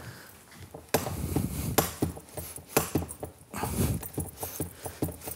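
Cannondale Lefty fork being handled to empty out its cleaning solution into a basin: repeated clicks and knocks from the fork's parts, with short bursts of rushing noise as the liquid pours out.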